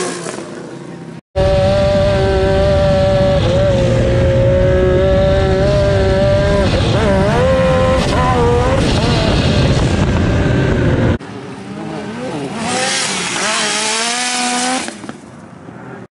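Turbocharged Yamaha YXZ1000R side-by-side's three-cylinder engine held at high revs while driving flat-out across sand, its pitch wavering briefly twice. After a cut, a more distant engine climbs in pitch as it accelerates.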